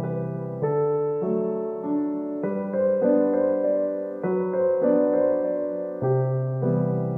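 Background piano music: a slow melody over low held notes, a new note or chord struck about every half second and fading before the next.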